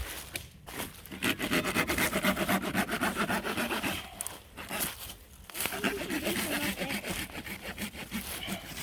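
Pocket saw cutting through a fallen tree lying across a trail, with quick back-and-forth strokes. There are two runs of sawing, with a short break about four to five and a half seconds in.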